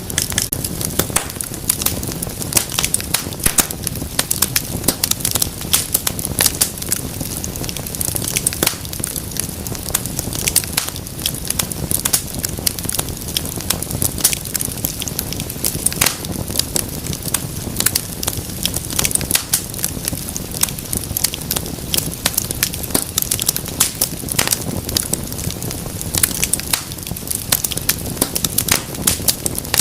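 Wood fire crackling steadily, with many sharp pops and snaps over a low rumble of burning.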